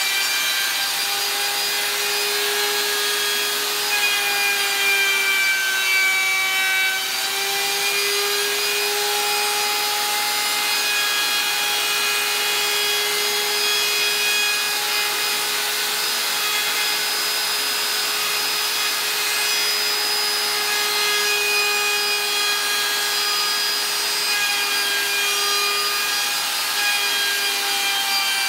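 Compact handheld router running steadily with a high whine, its bit cutting a groove in a high-density polyethylene board. The pitch wavers slightly as the cutter is fed along the plastic.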